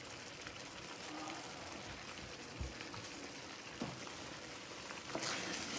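Pan of barbecue sloppy joe meat simmering down on the stove: a faint, steady bubbling crackle, with a few soft knocks and a brief louder rustle near the end.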